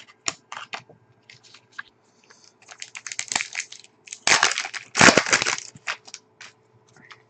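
Trading cards and their packaging being handled by hand: scattered light clicks and taps, then two louder stretches of rustling and crinkling about four and five seconds in.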